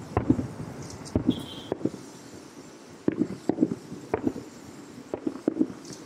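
Aerial fireworks shells bursting about two miles off, heard as a string of dull, low booms, about ten in six seconds, coming singly and in quick clusters.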